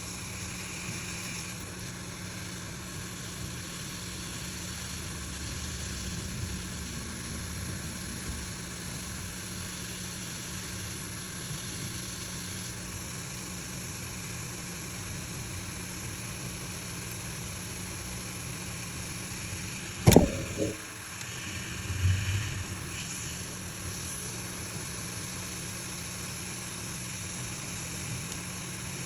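Steady machine hum from running workbench equipment. It is broken by one sharp click about twenty seconds in and a brief low thud about two seconds later.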